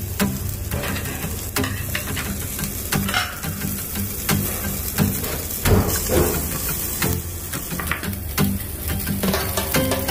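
Strips of pork belly sizzling and crackling on a tabletop grill, with background music playing under them.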